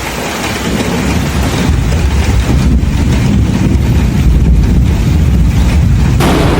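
Thunderstorm sound: a continuous low thunder rumble mixed with wind noise, then a sudden sharp thunderclap from a close lightning strike near the end.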